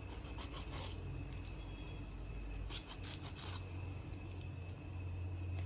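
Serrated kitchen knife scoring slits into raw chicken legs: faint scattered scrapes and small clicks, over a low steady hum.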